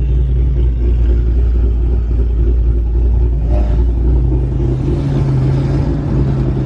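A car engine running with a deep, steady rumble, heard from inside the car's cabin. Its deepest part fades about three and a half seconds in.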